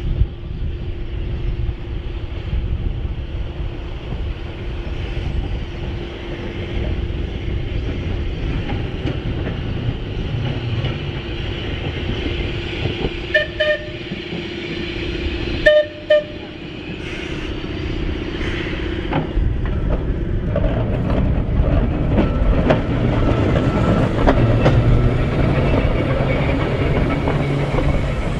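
Manx Electric Railway heritage electric tram running on its line, a steady hum over wheel rumble. A bit past halfway it sounds its warning horn at a road crossing: two quick toots, then one more. The running rumble and wheel clatter grow louder near the end.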